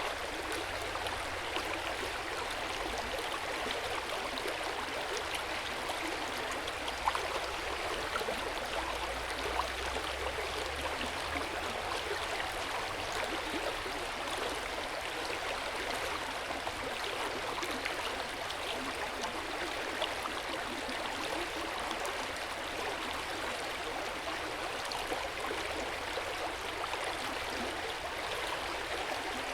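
Hot spring water flowing steadily into an open-air bath, a constant gentle splashing and gurgling with small droplet ticks.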